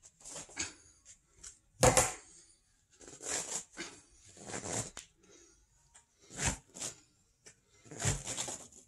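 Scraping and rubbing of a white plastic hose-end insert being twisted and pulled out of a green garden hose with pliers, in irregular bursts, with a sharp knock about two seconds in.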